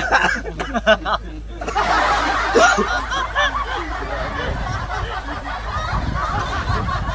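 A group of men laughing together: a few short bursts of laughter at first, then, from about two seconds in, many voices laughing and chattering over one another.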